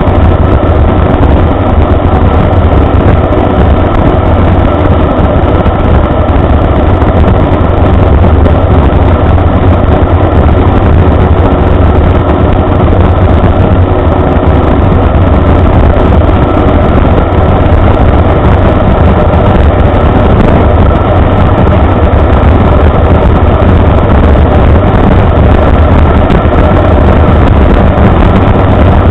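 Inverted Rotax 582 two-stroke twin driving a wooden three-blade propeller, running steadily in flight as heard from inside the cockpit. The engine and prop make a loud, unbroken drone that is heaviest in the low end.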